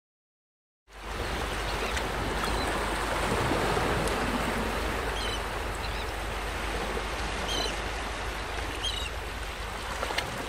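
Sea waves and surf making a steady rushing wash that starts about a second in, with a few short high chirps over it.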